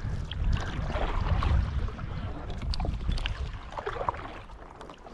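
Kayak paddling: the paddle blades splash and drip in the water, with a low rumble of wind on the microphone that eases after about two seconds.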